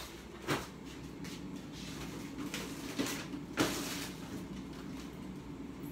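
Three brief knocks and clunks from kitchen handling, about half a second in and twice around three seconds in, over a low steady hum.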